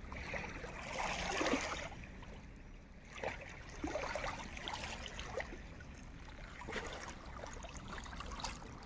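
Small waves lapping and trickling over a pebbly shore, with irregular light splashes and a steady low rumble underneath.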